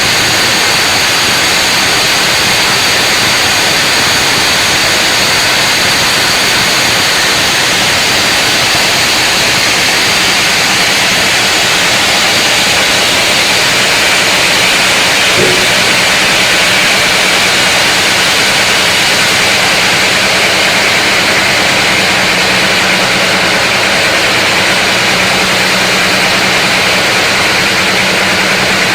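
Large sawmill saw running loud and steady as it cuts through a big mahogany log, with a low hum beneath and one small knock about halfway through.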